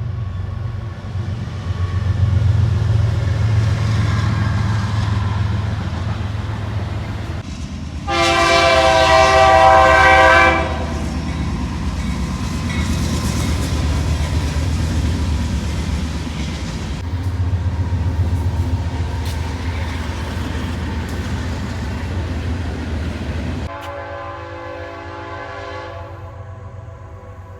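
A train passing with a steady low rumble. About eight seconds in, its horn sounds one loud blast lasting a couple of seconds. Near the end the rumble drops away and a second, quieter horn blast sounds.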